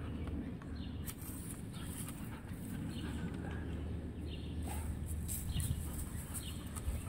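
Border collie playing with a wooden stick, with short high squeaky sounds every second or so, scattered clicks of wood in its mouth and a steady low rumble.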